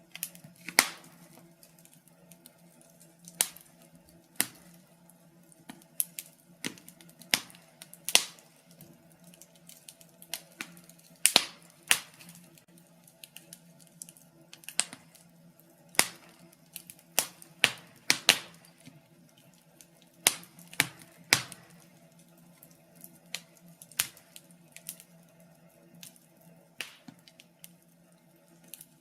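Wood fire burning in a fireplace, crackling with irregular sharp pops and snaps, some much louder than others, over a faint steady hum.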